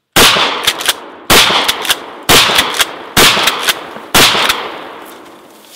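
Pump-action 12-gauge shotgun firing #4 buckshot: five shots about a second apart, each followed by the quick clack-clack of the pump being racked to chamber the next shell. The last shot's echo dies away over about a second and a half.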